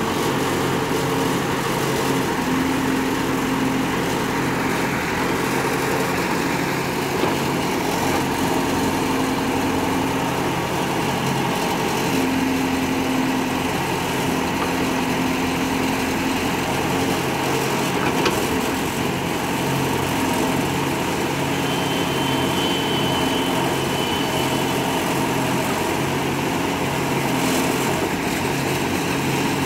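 Diesel engine of a Case backhoe loader running steadily while its hydraulic backhoe arm works, loading soil into a tractor trolley.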